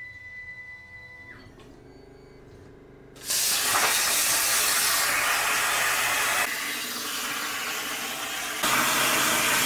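Plasma cutter cutting steel plate: after a quieter machine hum, a loud steady hiss of the arc and air starts about three seconds in, eases for a couple of seconds past the middle, then comes back up.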